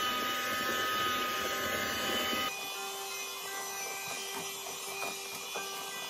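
Electric hand mixer running, its beaters whirring through thick creamed butter-and-sugar cake batter as eggs are beaten in. About two and a half seconds in the sound drops abruptly to a quieter, lower hum.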